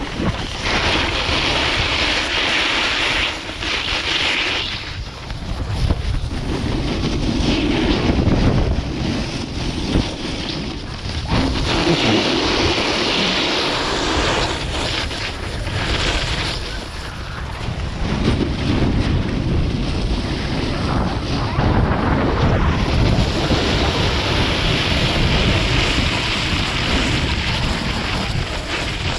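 Wind buffeting the microphone while a snowboard slides and carves over packed snow, its edges scraping in a hiss that swells and fades with the turns.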